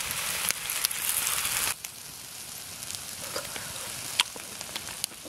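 Vegetables sizzling in a frying pan. The sizzle drops off sharply a little under two seconds in, leaving a fainter hiss with scattered ticks.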